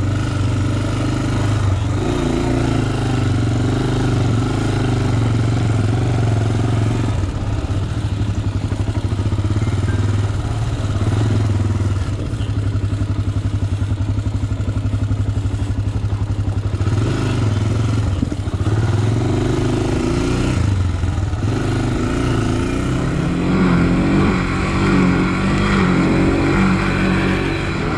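Honda sport ATV's single-cylinder four-stroke engine running steadily at low to middling revs, its note shifting with the throttle and climbing higher in the last few seconds.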